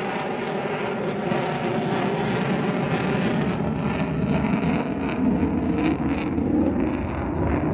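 Lockheed Martin F-35B Lightning II's single turbofan jet engine heard in flight, a steady heavy roar that deepens and grows louder toward the end, with some crackle in the upper range.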